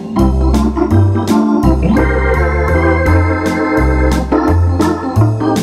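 Roland FR-4x digital accordion playing a jazzy Hammond-style organ voice: sustained organ chords and melody over a bass line that steps from note to note, with crisp ticks keeping a steady beat.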